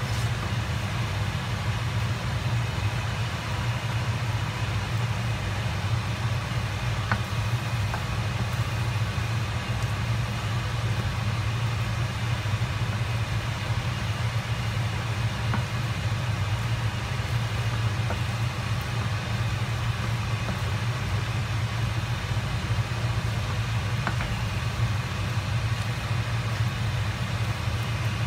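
A steady mechanical hum with a low drone, like a kitchen fan or appliance running, with a few faint clicks of a wooden utensil against a stainless steel pan as pasta is tossed.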